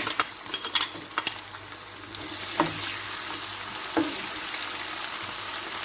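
Chopped onion sizzling in hot palm oil in a pot while being stirred, with a spoon clicking and knocking against the pot, most often in the first second or so.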